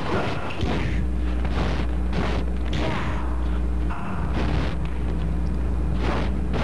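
Fight-scene hits and whooshes: short, noisy punch and kick sounds about once a second over a steady low hum.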